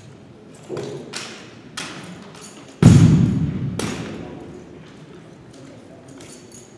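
Drill rifle being spun and handled in exhibition drill: a few sharp knocks and slaps of hands on the rifle, and one loud heavy thud about three seconds in that rings out in the large gym hall.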